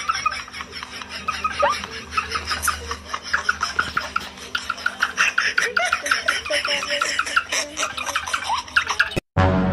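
A small brush scrubbing in quick, even strokes, several a second, like teeth being brushed, with a little laughter over it. Near the end it cuts off and music comes in.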